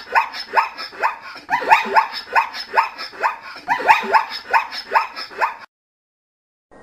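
Zebra calling: three runs of quick, barking yelps, several a second, each yelp falling in pitch. The calls stop near the end.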